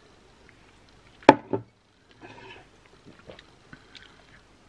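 A person drinking a mouthful from a glass tumbler, with one sharp click about a second in and a softer sound just after it.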